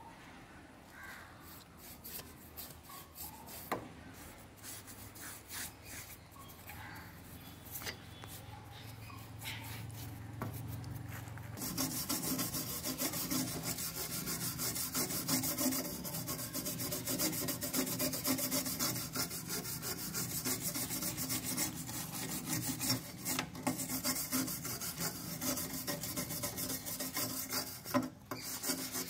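Hand tool scraping back and forth on a rusty tubular iron chair frame, rubbing off rust. It is faint and scattered at first, then a little before halfway it becomes a steady, louder scraping.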